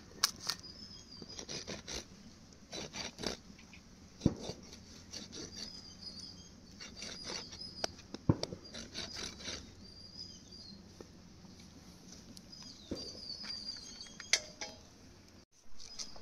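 Irregular scraping and rubbing strokes from work on a pork leg, broken by three sharp knocks about four seconds apart, with birds chirping in the background.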